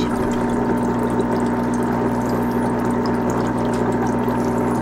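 Arealer electric foot spa running: a steady motor hum with a low and a high held tone, over water churning around the feet in the basin.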